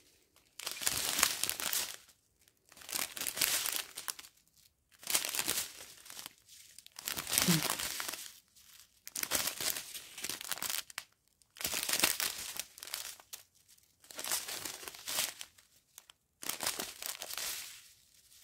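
Small clear plastic bags of diamond painting drills crinkling as they are handled one after another, in about eight bursts of rustling with short pauses between.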